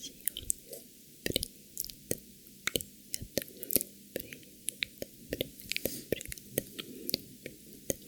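Close-miked wet mouth sounds: irregular sticky clicks and smacks of tongue and lips, several a second.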